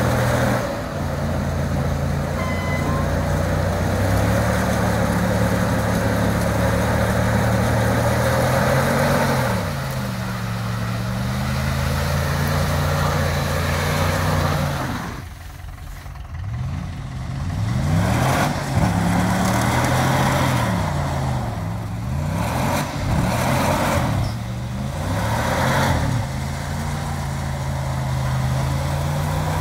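Ram 1500 pickup's engine working hard to pull the truck through deep mud with its wheels spinning. The engine holds a fairly steady note at first, then revs up and down repeatedly through the second half.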